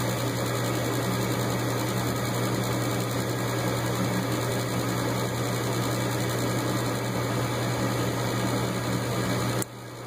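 Gas furnace's induced-draft fan motor running with a steady hum during the igniter warm-up, before the gas valve opens. The level drops sharply near the end.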